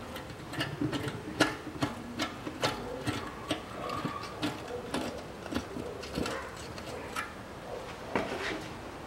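Small metal clicks and taps, irregular at about one or two a second, as pan bolts and a mesh heat shield are fitted by hand at an automatic transmission's oil pan.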